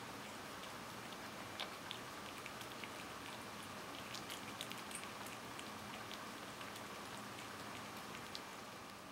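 A cat licking Churu paste from a squeeze tube: a run of small, irregular wet clicks from its tongue, coming thickest a little after the middle.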